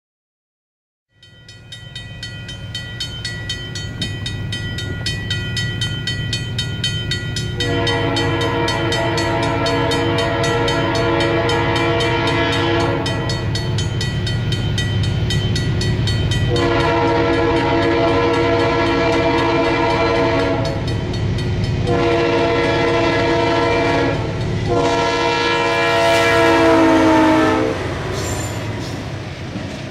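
Approaching diesel freight locomotive, led by GE B40-8W BNSF 530, with its engine rumbling. Its horn sounds the grade-crossing signal of two long blasts, a short one and a final long one. The train grows louder and passes close by at the end of the last blast.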